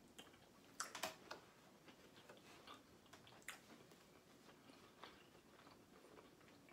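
Faint chewing and mouth clicks of someone eating, with a few sharper clicks about a second in and again around three and a half seconds.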